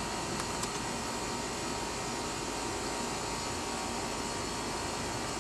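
Steady mechanical hum and hiss, like an air conditioner or fan running, with a couple of faint clicks about half a second in.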